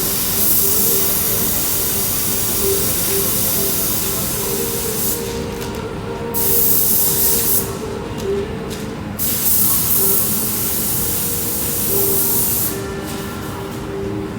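Loud hiss of air or spray that cuts off and starts again three times, over a steady mechanical hum.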